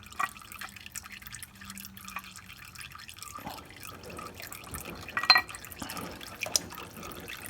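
Engine oil dripping and trickling into a drain pan, with a few sharp clicks of handling, the loudest about five seconds in.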